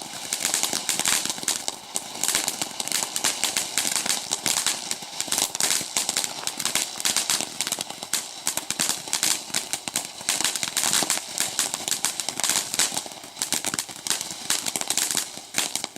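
Ground fountain firework burning with a dense, continuous crackle of many fine pops, dying out right at the end.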